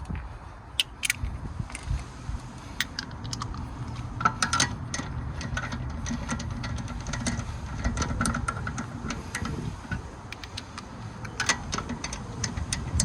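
Metal hand tools clinking and tapping irregularly against metal parts during work on a car's wheel hub, over a steady low rumble.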